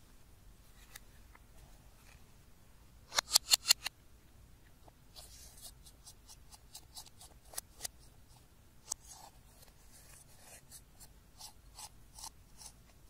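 Pressed makeup powder being scraped out of its compact with a thin tool and crumbling into a glass dish: short scratchy strokes, with a quick, louder run of about six scrapes a little after three seconds in.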